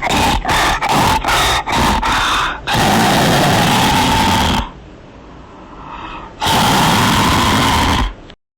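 Creature sound effects for an infected shrew: a run of short calls about three a second, then a long call, a quieter stretch, and a second long call that cuts off suddenly.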